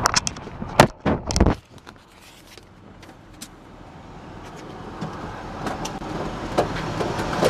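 A few loud knocks and rattles in the first second and a half as the camera is handled and set down on a car dashboard. Then a steady hum of outdoor traffic noise through the open car door, slowly growing louder, with a few faint clicks.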